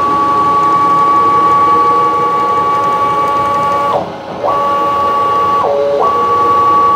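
CNC-converted PM-727M mill's axis stepper motor driving the ballscrew through a jaw coupling, making a steady whine of a few tones. The whine drops in pitch and stops about four seconds in, starts again half a second later, and dips lower briefly around six seconds in, as the axis slows, stops and moves on.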